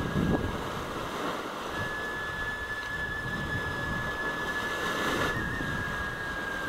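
Geyser water boiling up and surging, a steady rushing and splashing noise with a low rumble, with steam around it. A thin, steady whistle-like high tone runs over it.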